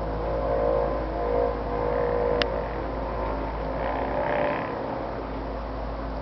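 A steady mechanical humming drone made of several layered tones, louder over the first two seconds or so. A single sharp click comes about two and a half seconds in. The recordist takes the hum for a UFO.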